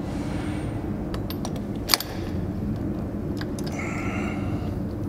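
Metal clicks and clinks of wheel bolts, socket and ratchet as an aluminium wheel spacer is bolted against a tractor's wheel hub, with one sharp metallic clink about two seconds in and a short run of ratchet clicking near four seconds.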